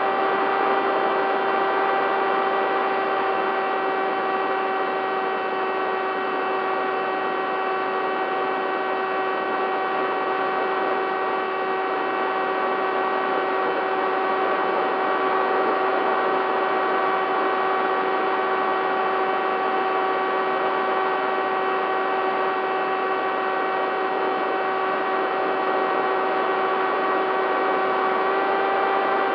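Bixler 3 foam plane's electric motor and pusher propeller running at a steady throttle: a constant whine that does not change pitch, over a rush of air, as picked up by the plane's onboard camera.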